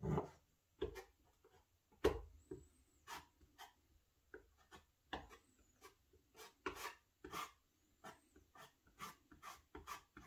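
Faint, irregular taps and rubs of hands pressing a strip of cork roadbed into adhesive and pinning it down, with the loudest knocks right at the start and about two seconds in.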